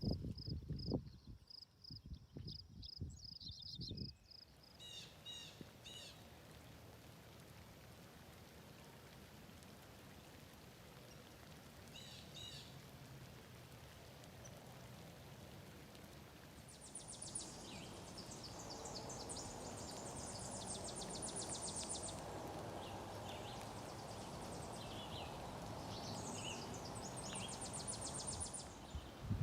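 Outdoor nature ambience: birds chirping and singing over a steady background hiss, with the birdsong busier and louder in the second half. In the first few seconds there are low, irregular thumps and a repeated high note.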